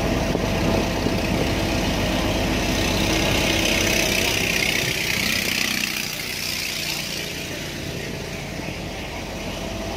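River ferry's engine running steadily, with a hissing rush that swells and fades around the middle as a speedboat passes close by.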